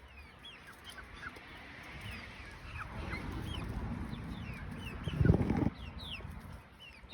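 Backyard poultry peeping, many short high chirps that fall in pitch, repeated throughout. A louder rustle comes about five seconds in.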